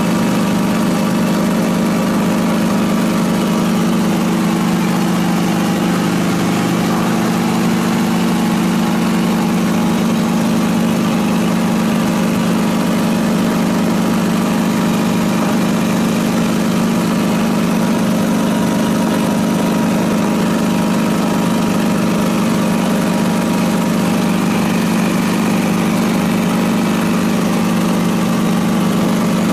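Small aircraft's engine running steadily in flight, heard from inside the cabin: a constant hum with an even hiss of air over it.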